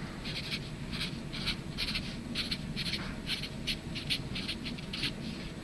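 Felt-tip marker writing on paper: a steady run of short strokes, a few a second, as a word is lettered by hand.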